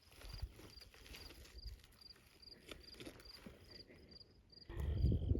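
An insect chirping steadily, about three short high chirps a second, with scattered faint rustles and ticks. Near the end a louder low rustling noise comes in.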